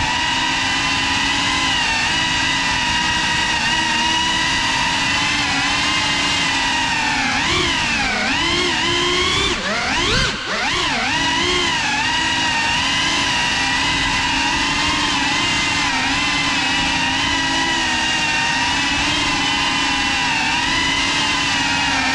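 Cinelog35 cinewhoop's brushless motors whining steadily, heard from its onboard GoPro. Between about seven and eleven seconds in, the pitch swoops up and down several times as the throttle is worked, with a brief dip near ten seconds.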